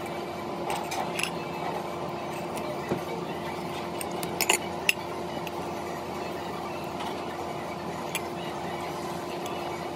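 A fork clinking against a plate a handful of times, the sharpest clinks about halfway through, over a steady background hum.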